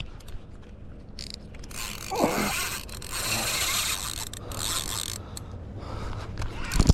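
Fishing reel being cranked, its gears running with a ratcheting whir that grows louder and hissier in the middle.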